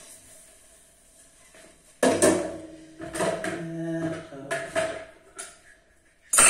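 Metal kitchenware clattering as a large aluminium tray is set down on a stack of pans about two seconds in, ringing briefly, followed by a few clinks and a sharp clatter near the end.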